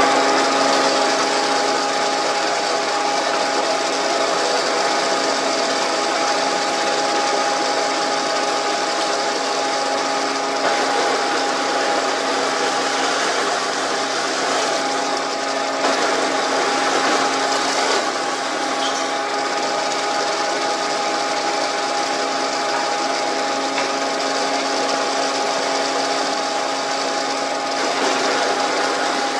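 Semi-automatic wood drilling machine running with a steady motor hum, its bit boring into a timber door-frame member. From about ten to eighteen seconds in the sound turns rougher and noisier.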